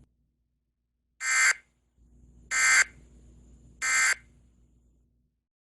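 Emergency Alert System end-of-message data tones: three short bursts of harsh digital screeching, evenly spaced about a second and a half apart. They signal the end of the alert message.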